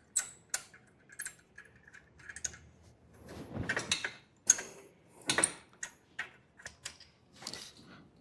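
Hand tools working loose the exhaust header bolts on a Hero Xpulse 200 motorcycle: irregular metallic clicks and clinks, some ringing briefly, with a few longer scraping rattles of metal around the middle.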